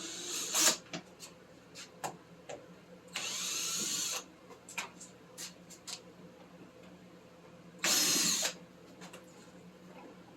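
Cordless drill/driver running in two short bursts, one about a second long a few seconds in and a shorter one near the end, its pitch sweeping as it spins, with scattered clicks and knocks between.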